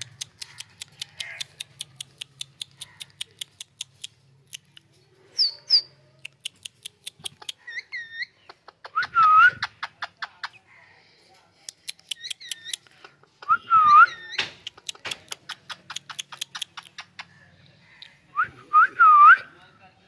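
Short swooping whistled notes, often in pairs, come several times over an even, rapid clicking of about four clicks a second, beside caged rose-ringed parakeets.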